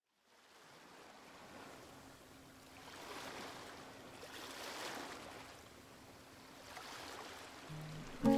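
Soft wash of waves swelling and ebbing every second or two, fading in at the start. Plucked guitar notes of the backing music come in at the very end.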